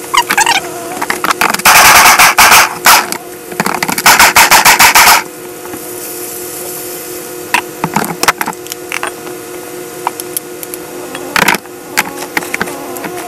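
Ninja food processor pulsing raw cauliflower florets into cauliflower rice: two runs of short, loud motor pulses with the blade chopping the florets. Then the plastic jar and lid clatter quietly as they are handled, with one sharp knock near the end.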